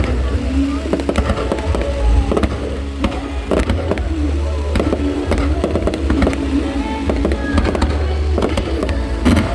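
Fireworks bursting in rapid, irregular bangs over a constant deep rumble, with music playing alongside.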